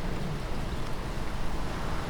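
Steady wind noise for relaxation or sleep: an even, unbroken rush, heaviest in the low end.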